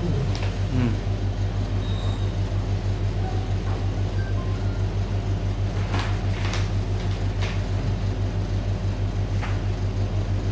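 A steady low hum with a fast, even pulsing, and a few sharp crackles of paper sheets being handled and held up, most of them about six to seven and a half seconds in.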